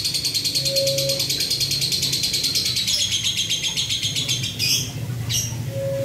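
Male lovebird, of the Fischer's type, giving its rapid 'ngetik' ticking call: a fast, even run of sharp clicks like a clacking lato-lato toy, the sign of a male in strong breeding condition (over-birahi). The run stops about four and a half seconds in and a couple of short chirps follow.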